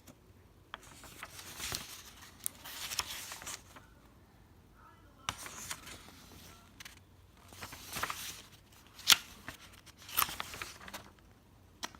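Pages of a thick printed instruction manual being turned by hand: irregular paper swishes and rustles, with a few sharp paper snaps, the loudest about nine seconds in.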